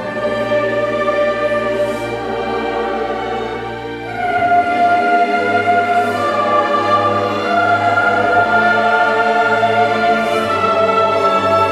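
Mixed choir singing a sacred Mass setting with chamber orchestra, held chords that swell louder about four seconds in.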